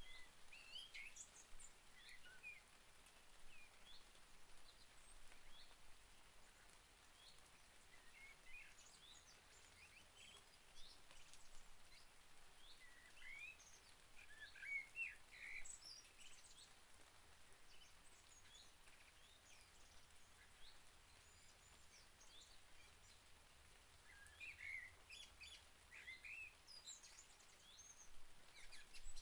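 Faint birdsong: scattered short chirps, busiest around the middle and again near the end, over a soft, even hiss of light rain.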